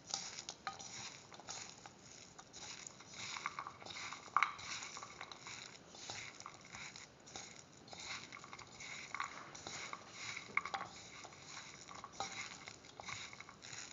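Bare hand mixing and squeezing a thick ground split chickpea mixture with chopped shallots, chilies and curry leaves in a bowl: irregular soft squishing and rustling with small clicks.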